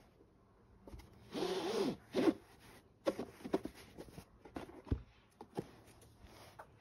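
Hardcover book being handled on a carpet: a brief rustling slide a little over a second in, then a run of light taps and scuffs as it is turned over and opened.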